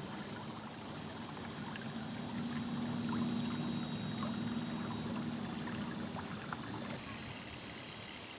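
A vehicle's motor running with a steady hum under an even rushing noise. The higher part of the rushing noise stops abruptly about seven seconds in.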